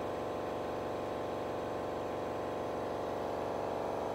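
A machine running with a steady, even hum.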